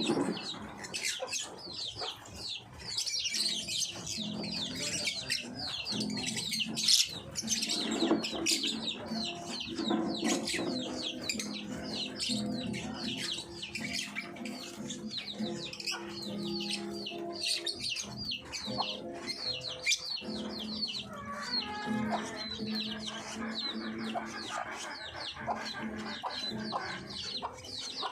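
A group of lovebirds chattering: many rapid, high-pitched chirps and squeaks overlapping without a break.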